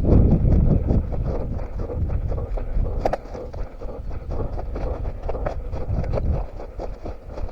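A runner's quick, regular footfalls on forest ground, with wind rumbling on the head-mounted microphone, loudest in the first second.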